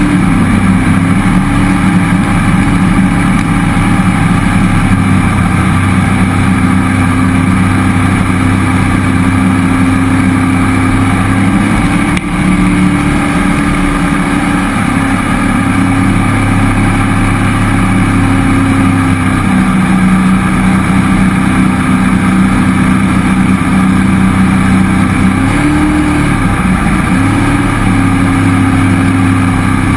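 Jet boat's cammed 5.3L LS V8 running under way at a steady throttle, driving a Berkeley jet pump. The engine note dips briefly about halfway through and shifts pitch a couple of times later on as the throttle changes.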